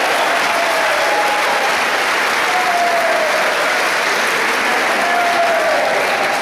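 Spectators in a sports hall applauding steadily at the end of a table tennis point, with a few drawn-out calls from the crowd over the clapping.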